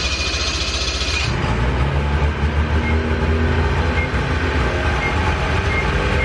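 2004 Ski-Doo GSX 800's two-stroke twin engine running just after starting. A brighter hiss sits over it for about the first second, then it settles into a steady idle.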